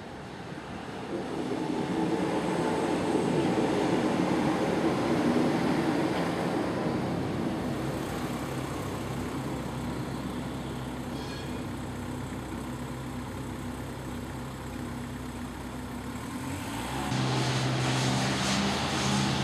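Street traffic: a vehicle passing at a level crossing, swelling about a second in and slowly fading. Near the end the sound cuts to a steady low hum.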